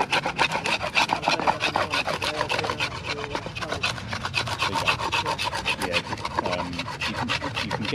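Knife blade scraping the bark off a green wooden stick in rapid, even strokes, several a second.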